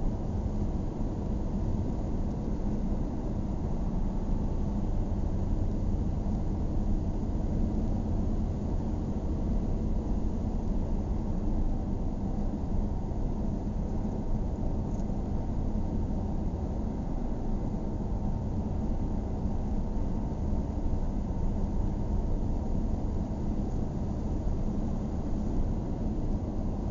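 Car driving on a paved road: a steady low rumble of tyres and engine.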